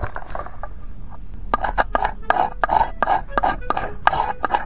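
Captain Stag metal-match fire starter: the steel striker is scraped along the magnesium rod in quick rasping strokes, about five a second, starting about one and a half seconds in, shaving off powder and sparks over tissue.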